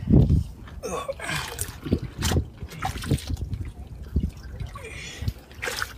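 Gloved hands splashing and groping in shallow muddy water around a rock, with trickling water and irregular small splashes and knocks.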